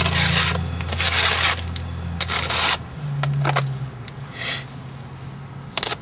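Repeated scrapes and rubs as a microwaved lithium polymer battery is pushed and dragged out with a floppy disk. Under them runs a steady low electrical hum that changes to a higher, fainter hum about three seconds in.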